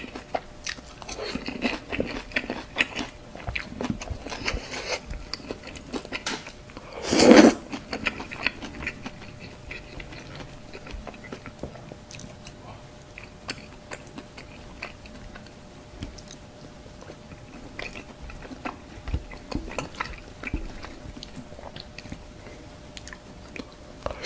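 Close-miked chewing and wet mouth sounds of a person eating sauce-coated tteokbokki rice cakes with melted cheese and fried snacks, made of many small clicks and smacks. A single louder, brief mouth sound stands out about seven seconds in.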